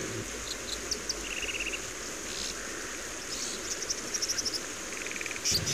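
Steady hiss of creek water with short, rapid pulsed chirps from night-calling insects or frogs, a few times over: a lower buzzy trill twice, and a run of higher pulses near the middle.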